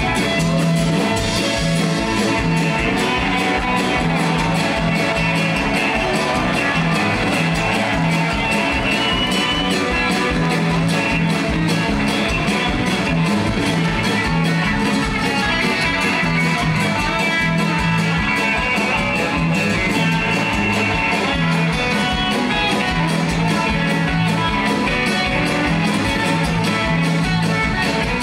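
Live folk-rock band playing a fast instrumental reel on fiddle, electric guitar, acoustic guitar, bass guitar and drums, with a steady driving beat and a repeating bass line underneath.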